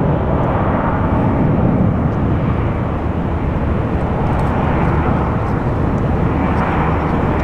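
Jet engine noise from an Airbus A380 on take-off: a loud, steady rumble, heaviest in the low end.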